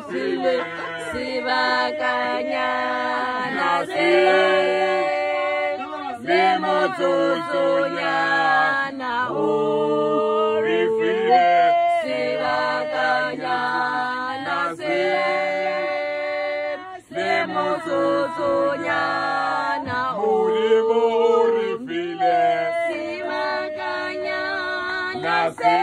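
A group of people singing together unaccompanied, several voices holding notes in harmony in phrases that break every few seconds, with a brief drop about 17 seconds in.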